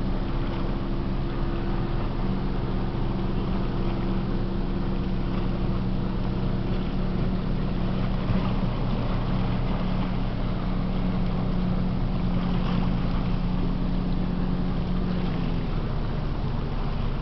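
Freighter Algoma Transport's engines droning across the water: a steady low hum over a background hiss.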